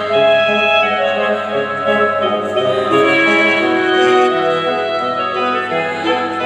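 Background music: instrumental, with many held notes sounding together.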